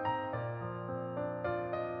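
Background music: a slow piano tune, with a new note about every half second.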